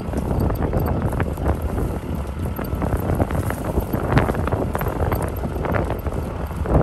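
Wind buffeting the microphone, a loud ragged rumble with crackling gusts.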